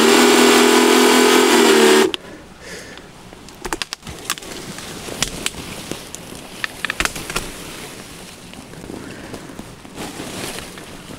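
A power saw runs loud and steady while cutting and stops abruptly about two seconds in. Sharp cracks and snaps of breaking branches and rustling leaves follow as a maple stem is brought down.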